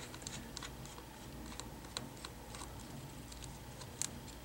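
Faint, scattered light clicks and taps of a small screwdriver and tiny hinge screws being handled on a laptop, with a sharper click about four seconds in.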